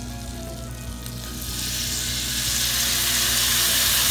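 Fresh lemon juice squeezed from a hand-held lemon press into hot butter and olive oil in a stainless steel sauté pan, sizzling. The hiss swells about a second and a half in and keeps getting louder.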